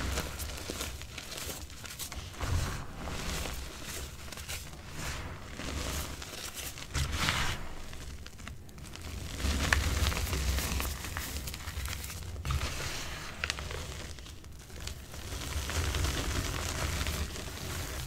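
Bare hands squeezing and crumbling blocks of reformed gym chalk in loose chalk powder, making soft irregular crunching and crumbling as the clumps break apart, with a few louder swells.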